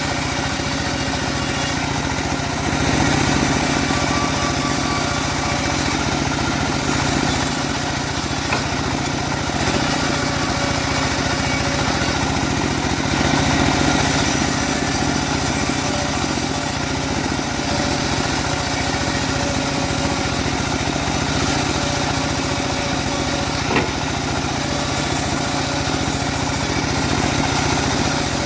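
Homemade bandsaw sawmill running steadily, a continuous engine-like drone under a dense, even noise.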